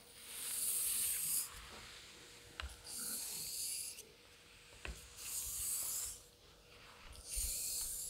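Straight razor blade drawn in X strokes across a Japanese natural whetstone covered in Meijiro nagura slurry: four hissing honing strokes about two seconds apart, with light ticks between some of them.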